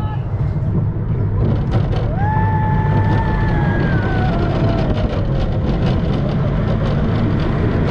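Gerstlauer bobsled coaster train running along its steel track with a steady low rumble. About two seconds in a rider lets out a long, high whoop that holds and then slides down in pitch.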